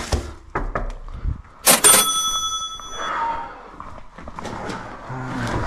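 A single bell-like ding about two seconds in, ringing and fading over about a second: a lift's arrival chime. A few light clicks and knocks come before it.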